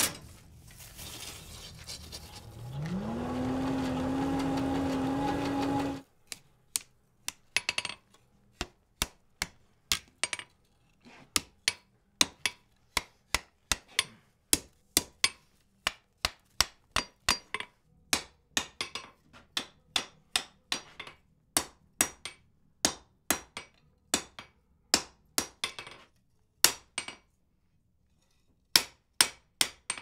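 A blacksmith's hand hammer striking hot wrought iron on an anvil: a long run of sharp, ringing blows at about one to two a second, uneven in spacing, with a brief pause near the end. Before the hammering, for the first six seconds, a small motor whirs up in pitch and holds steady with a rush of air, then cuts off.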